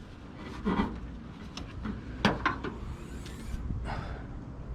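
Car hood being handled on its newly fitted gas struts: a few scattered light clicks and knocks, the sharpest a little past two seconds in, and a faint brief hiss near the three-second mark.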